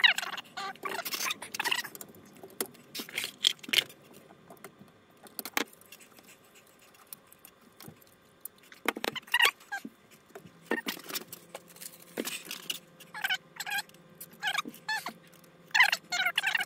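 Irregular clicks, taps and rattles of metal and plastic parts being handled inside an opened Sony SL-HF100 Betamax video recorder, as a metal-shielded module is lifted out and cable connectors are worked by hand.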